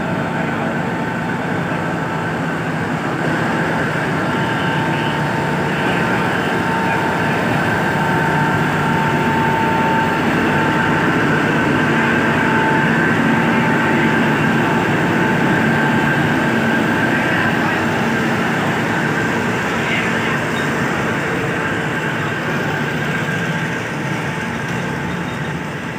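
Alsthom diesel-electric locomotive running steadily with a steady whine as it hauls a passenger train slowly past. The sound is loudest as the locomotive goes by about halfway through, then eases as the coaches roll past.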